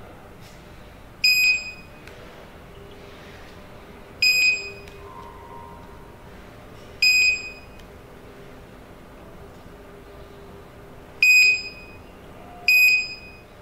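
Built-in buzzer of an RFID keypad access controller giving five short, identical high beeps a few seconds apart. This is its acknowledgement as proximity cards are read one after another while user cards are added in programming mode.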